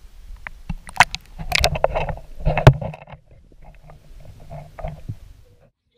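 Pond water splashing and sloshing close to the microphone at the water's surface, with sharp knocks and splashes about one and two and a half seconds in, then quieter once the camera is underwater.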